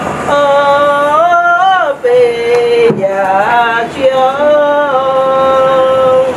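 Singing in long held notes that slide up and down in pitch between them, with brief breaks about two and four seconds in.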